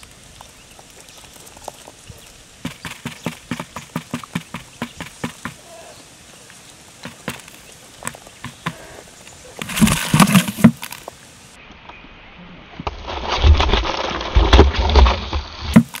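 Quail pecking grain off a hard trap lid: a quick run of sharp taps, about four a second. Two loud bursts of noise follow, a short one about halfway through and a longer one of about three seconds near the end.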